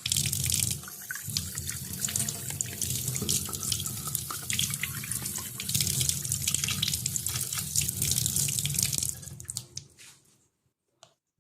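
Water from a tap running into a sink, a steady splashing hiss that stops about ten seconds in.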